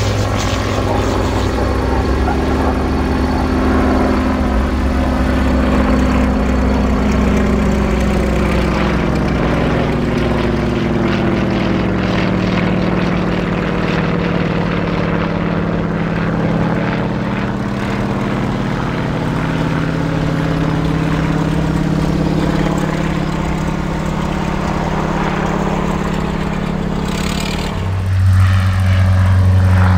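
Single-engine propeller aerobatic plane flying overhead, its engine note rising and falling slowly as it manoeuvres. Near the end a second propeller plane passes low and louder, with a deeper engine note.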